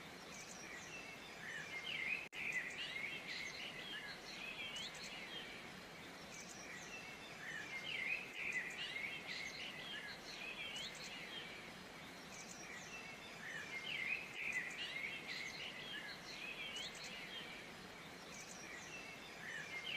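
Many small birds chirping and singing over a steady rushing noise, in flurries that come back about every six seconds.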